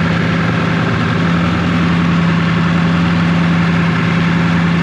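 Square-body truck's engine idling steadily while it warms up, heard from underneath the truck: an even, unchanging low hum with no revving.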